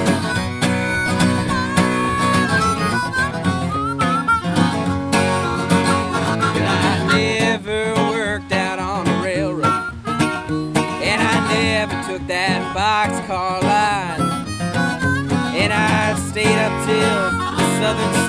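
Folk-country instrumental: steel-string acoustic guitar strummed and picked under a harmonica melody, whose notes bend and waver repeatedly through the middle and later part.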